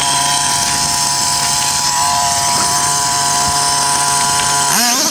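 Kyosho RC monster truck's small engine running at a steady high pitch, then revving up with a wavering rise near the end.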